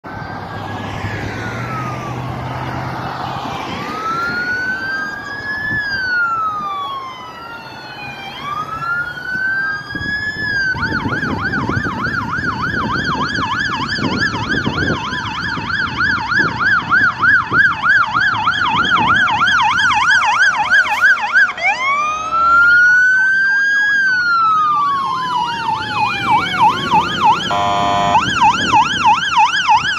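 Sirens of two Queensland Fire and Rescue fire trucks on an emergency run, several overlapping slow wails rising and falling, then switching to a fast yelp about ten seconds in, back to a wail and again to yelp, with a short horn blast near the end. The sirens grow louder as the trucks approach, over the sound of passing traffic.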